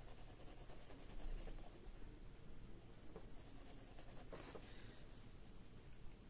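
Soft graphite pencil scratching faintly across sketchbook paper in short shading strokes, a little louder about four and a half seconds in.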